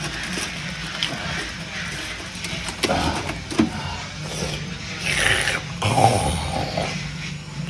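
Brown paper bag rustling and crinkling in irregular bursts as it is handled and opened, over a steady low hum.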